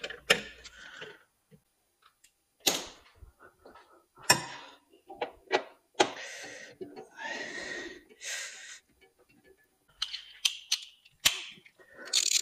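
Scattered clicks, knocks and scraping as airbox parts and bolts are handled and fitted by hand in a car's engine bay, with a few longer rustling scrapes about six to nine seconds in.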